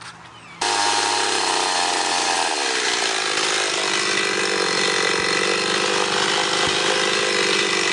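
Gas chainsaw running at full throttle as it cuts down into a white pine log. It starts abruptly about half a second in, its pitch drops about two seconds later as the chain bites into the wood, and then it runs steadily through the cut.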